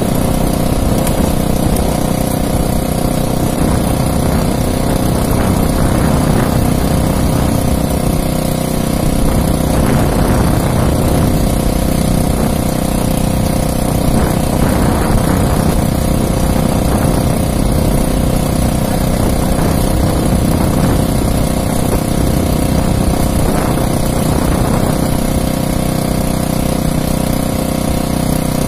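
Small gasoline engine of a motorized outrigger fishing boat running steadily at an even speed.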